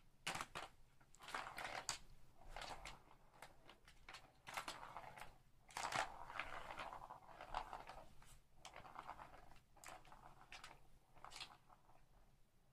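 A cat batting the ball around a Catit Senses Super Roller Circuit: the ball rattling and rolling in the plastic track in uneven bursts, with taps and scuffs on the track between short pauses.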